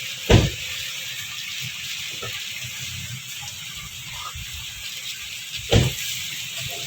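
Corn-shelling machine running with a steady hiss of kernels and cobs being threshed. Two dull thumps stand out, one just after the start and one near the end.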